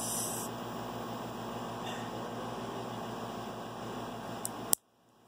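Steady electrical hum and hiss of background noise, with a brief hiss at the start. A little before the end comes a sharp click, after which the sound drops out abruptly.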